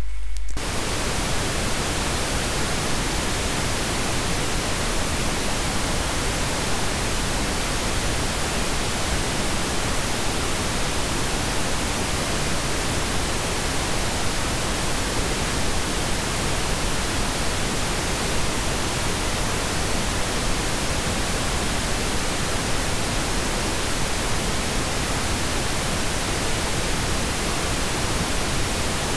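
Steady, even hiss of noise spread across all pitches, with no rhythm or changes, starting about half a second in.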